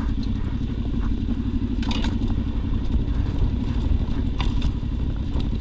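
Yamaha Tenere 700's 689 cc parallel-twin engine running steadily as the motorcycle rides along a rough lane, with a couple of brief clatters from the track.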